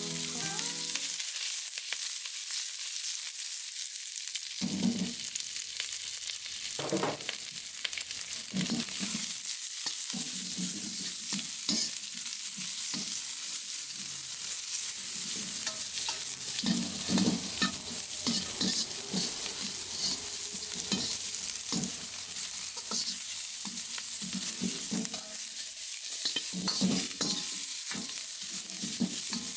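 Vegetable scraps sizzling in an oiled Yamada carbon steel wok, with a metal ladle scraping and tossing them round the pan in repeated strokes from about four seconds in. This is the last stage of seasoning the wok: stir-frying vegetable waste to complete the oil coating.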